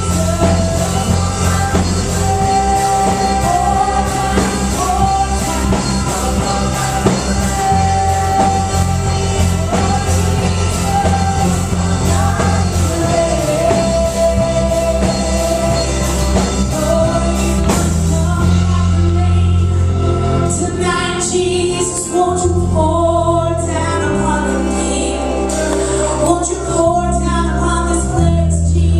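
Live church worship band playing a slow worship song, with a singer carrying the melody over held bass notes and a steady drum and cymbal beat. The drums ease off about two-thirds of the way through, leaving the voice and bass.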